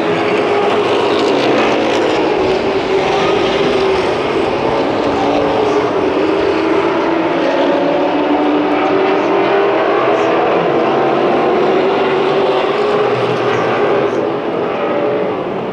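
A pack of short-track race trucks running at racing speed, their engines making several overlapping notes that waver in pitch.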